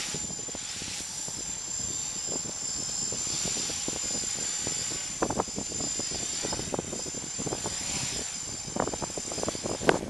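Small electric quadcopter's motors and propellers whining steadily, then cutting off suddenly near the end as it sets down on the grass. Wind gusts on the microphone from about halfway through.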